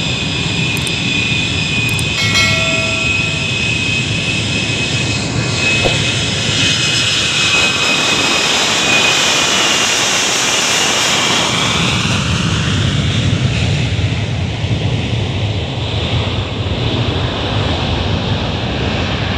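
Ilyushin Il-76TD cargo jet's four turbofan engines running as it taxis past: a steady high whine over a jet roar. The hiss is brightest about ten seconds in, then gives way to a deeper low roar that builds as the jet moves away.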